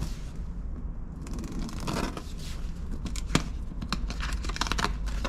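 Packaging being torn and crinkled open by hand: a run of sharp rips, snaps and rustles.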